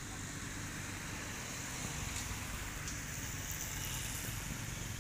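Steady outdoor background noise: a low rumble with a steady high hiss, growing slightly louder after about two seconds, with no distinct calls or knocks.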